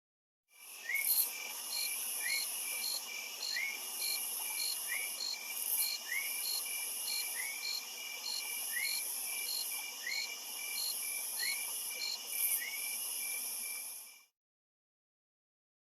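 Jungle insect chorus: dense, steady high-pitched trilling with a chirp pulsing about twice a second and a short rising call repeating every second or so. It starts about half a second in and cuts off abruptly near the end.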